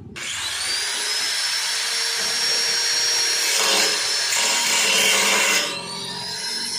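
Angle grinder switched on, its motor whine rising to speed and holding steady over a harsh grinding noise, the kind made by an abrasive disc cutting metal pipe. Near the end the sound drops briefly and the whine spins up again.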